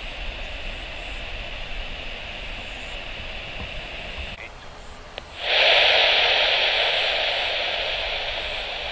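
Steady hiss of an open air-traffic-control radio channel, then, about five and a half seconds in, a sudden switch to the much louder, steady running noise of a Wings Air ATR turboprop airliner's engines and propellers on the runway, slowly fading.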